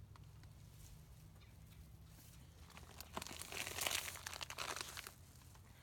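Plastic packaging crinkling as it is handled, starting about three seconds in and lasting about two seconds.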